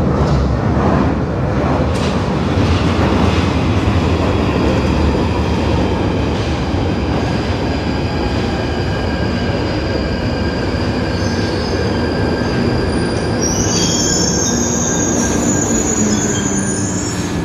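Northern line 1995 Stock tube train running into an underground platform, loud throughout. About thirteen seconds in, high brake and wheel squeal sets in as it slows to a stop.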